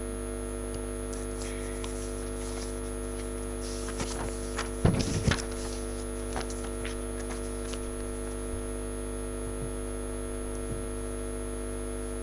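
Steady electrical mains hum from the conference sound system. About five seconds in comes a short cluster of knocks and rustling, from handling at the table microphone and papers.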